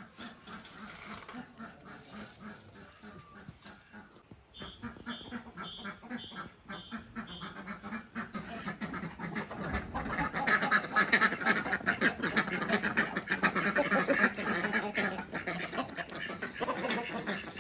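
Domestic ducks quacking and chickens clucking, a flock of farmyard poultry calling over one another, building up to loud, busy calling about halfway through.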